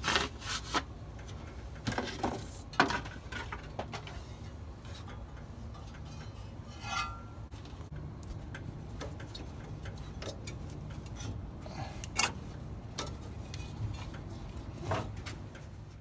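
Scattered sharp metallic clicks and clinks of hand tools and engine parts being handled while a V-belt is fitted, over a low steady hum.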